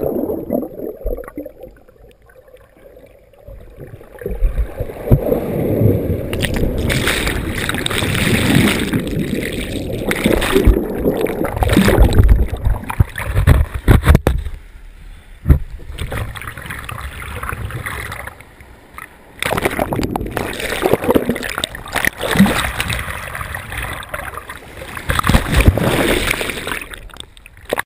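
Ocean surf surging over and around lava rocks, heard through a GoPro's waterproof housing as it goes in and out of the water: churning, gurgling rushes of water in several loud surges with quieter lulls between.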